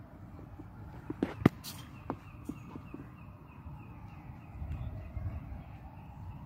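A cricket ball strikes hard twice in quick succession about a second and a half in. It then bounces four more times, each bounce quieter and closer together, as it settles on the net's artificial turf.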